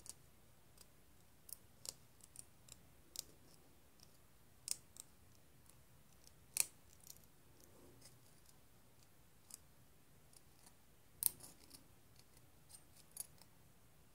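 Irregular sharp little clicks and ticks of thin steel Metal Earth model parts being handled and fitted together by hand, the loudest about halfway through and again later on.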